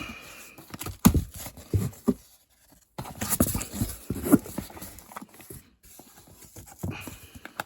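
A fireworks cake box being opened and handled: irregular knocks, thumps and scrapes, the sharpest about a second in, with a short pause before another busy run of handling.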